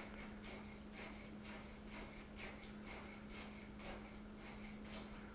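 Steel tamping rod plunging repeatedly into fresh concrete in the air meter's measuring bowl, giving faint, soft strokes about two a second, over a steady low hum. This is the second layer being rodded 25 times to consolidate it.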